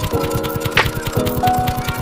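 Background music with a steady beat and held synth-like notes.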